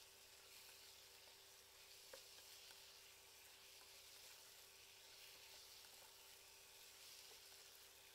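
Minced meat sizzling faintly as it fries in a small aluminium pan, with light scrapes and taps of a plastic spatula stirring it. A faint steady hum runs underneath.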